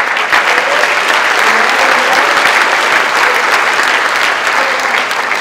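Audience applauding, many hands clapping steadily, easing off slightly near the end.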